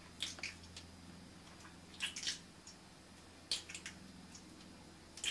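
Wet lip smacks of kissing against mirror glass, coming in four short clusters about a second and a half apart, over a faint steady hum.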